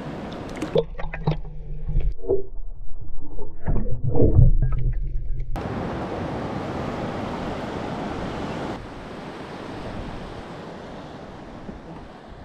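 Water splashing and sloshing as a fish is let go in shallow reef water, heard muffled for a few seconds, with knocks and splashes that are loudest about four seconds in. Then a steady rush of wind and surf that fades out near the end.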